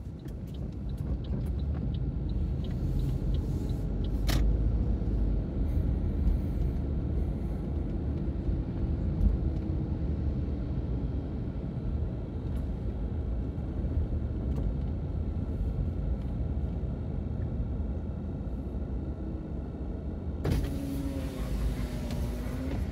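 Car cabin noise while driving slowly: a steady low rumble of engine and tyres, with a single sharp knock about four seconds in. Near the end a brighter hiss of outside noise comes in suddenly.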